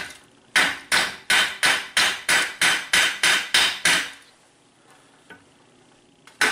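Hammer blows on a rusty steel axle hub and steering knuckle, knocking loose rust scale off: about eleven sharp metal strikes in quick succession, roughly three a second, stopping about four seconds in.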